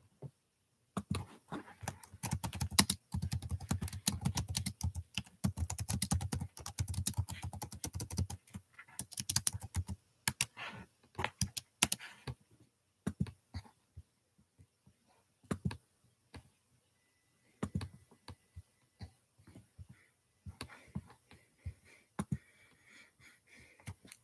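Typing on a computer keyboard: a fast, dense run of keystrokes for the first several seconds, then slower, scattered key presses and clicks.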